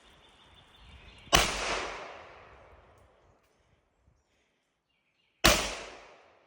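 Two gunshots about four seconds apart, each followed by a long echo that fades away.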